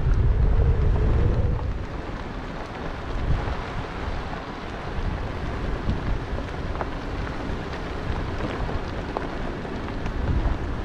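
Wind buffeting the camera microphone: a steady rushing rumble, heaviest in the first second and a half and then easing to an even level.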